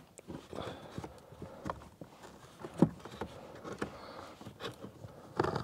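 Pleated paper cabin air filter being bent and pulled out of its housing in a Volvo S80: irregular knocks, scrapes and crinkles as the filter rubs against the housing, one sharper knock about three seconds in.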